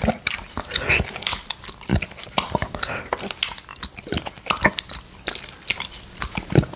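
Close-miked wet licking of a glass plate coated in orange juice: tongue and lips smacking and slurping on the glass in quick, irregular clicks.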